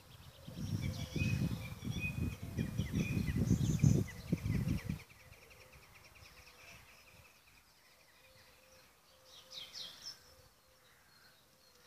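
Wind buffeting the microphone in uneven low gusts that stop abruptly about five seconds in, over small birds singing trilled, rapidly repeated songs, with another short burst of song later on.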